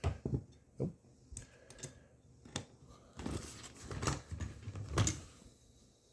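Metal hand tools, sockets and socket wrenches, clinking and knocking against each other as they are handled and taken from a tool bag: a few separate sharp clicks, then a busier stretch of clatter in the middle.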